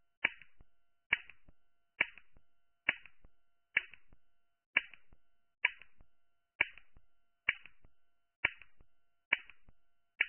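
Clock ticking: one sharp tick about every second, each dying away quickly, steady throughout.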